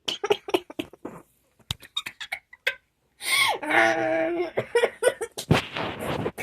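A person giggling in short, stifled bursts, with a longer pitched laugh in the middle and a breathy burst near the end.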